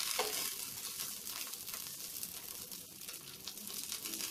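Stuffed paneer paratha sizzling in ghee on a hot non-stick tawa, just after being flipped. The sizzle slowly dies down.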